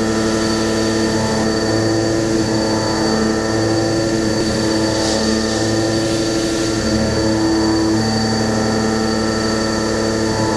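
4-inch Kennametal 7792 high feed mill roughing a ductile iron billet on a Heller CP 6000 machining centre. The cut gives a steady, multi-toned hum with a fine rapid rattle of the inserts striking the iron beneath it.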